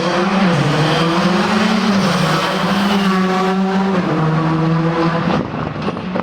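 A rally car's engine at high revs on a special stage. The engine note holds and then steps down at gear changes about two and four seconds in, and it fades as the car moves away near the end.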